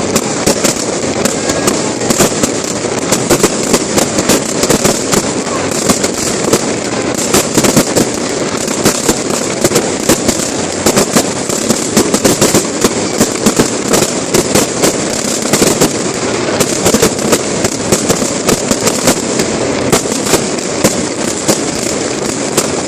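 Fireworks display: a dense, continuous crackle of many sharp bangs and pops, several a second, with no pause.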